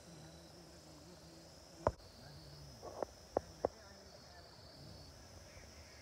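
Faint, steady high chirring of insects. A few sharp knocks cut through it: one about two seconds in and three in quick succession about a second later.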